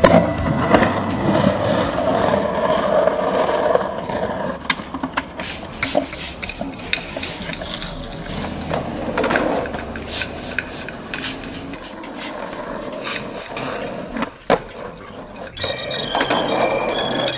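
Skateboard wheels rolling over rough concrete, with several sharp clacks of the board popping and landing.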